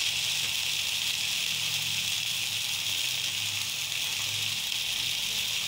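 Pre-boiled chicken pieces sizzling steadily on a hot black griddle pan as they grill.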